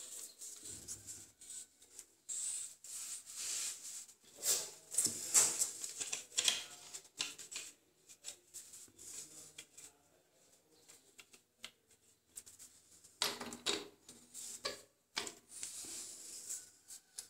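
Hand tools and a chrome angle stop valve being worked: irregular small metallic clicks and scrapes, a quiet stretch around the middle, then more clicking near the end.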